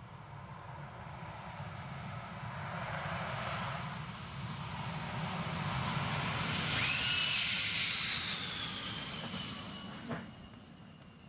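F-15 fighter jet's twin turbofan engines as it rolls down the runway at speed and passes close by, growing louder to a peak, then a high whine falling in pitch as it goes away. A short knock sounds about ten seconds in.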